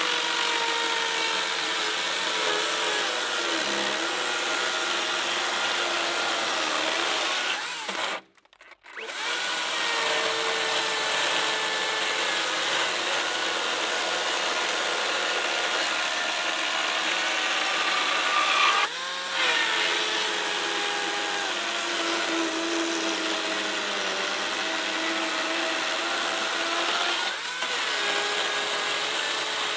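Makita 36V cordless electric chainsaw running flat out and cutting through a dense lodgepole pine log, its motor whine sagging in pitch under load. It stops for about half a second around eight seconds in, then dips briefly twice more later on.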